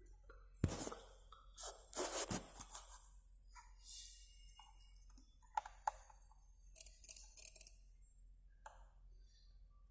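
Hand work on car wiring: scattered sharp clicks and short rasping snips at uneven intervals, as wires at a rust-damaged connector are cut and worked on.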